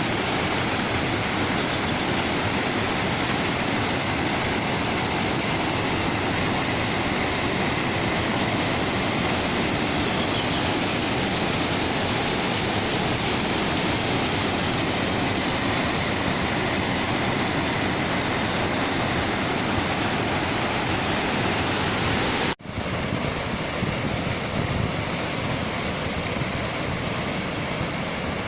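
Waterfall rushing: a steady wash of falling water. About 22 seconds in it drops out for an instant, then goes on slightly quieter.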